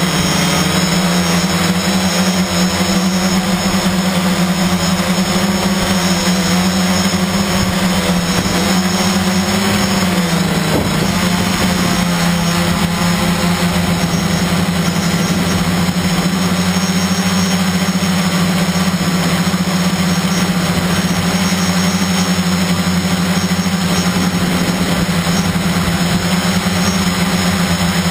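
Motors and propellers of a radio-controlled multicopter, heard from its onboard camera, humming steadily at a fairly constant pitch. The pitch sags briefly about ten seconds in, then steadies again.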